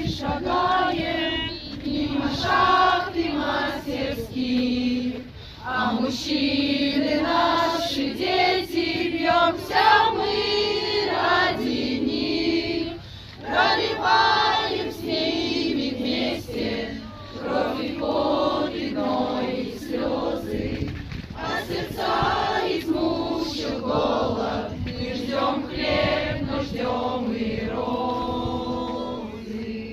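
A group of women singing a song together in unison, with long held notes.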